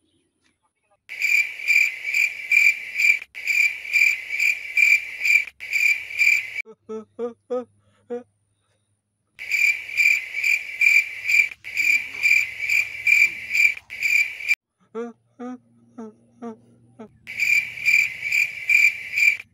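Cricket chirping sound effect: a shrill, rapid string of chirps in three stretches, each cutting in and out abruptly. Short wavering squeaks that glide up and down fill the gaps between them.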